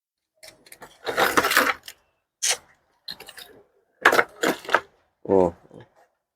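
Irregular clicking and clattering of small hard parts being handled on a workbench, loudest about a second in and again around four seconds in, with one short pitched sound a little past five seconds.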